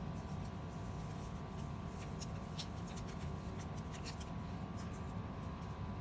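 Light crinkling and scattered small ticks of a paper seasoning packet being shaken over raw steaks, over a steady low hum.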